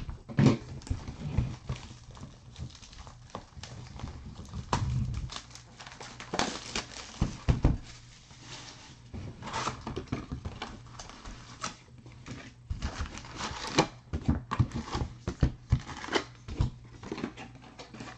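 Baseball card hobby box being opened and emptied by hand: a string of short rustles, crinkles and taps as the cardboard lid and flaps are handled and the wrapped card packs are lifted out and set down on a table.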